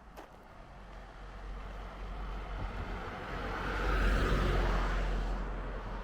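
A vehicle passing by: a tyre-and-engine hiss that swells to its loudest about four seconds in, then fades, over a low rumble.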